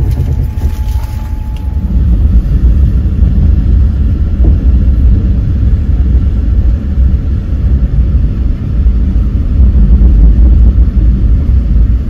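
Steady low rumble of a passenger train under way.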